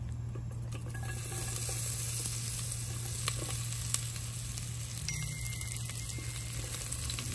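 Red onion sizzling as it fries in hot butter, stirred in the pan with a few light clicks of the spoon. A steady low hum runs underneath.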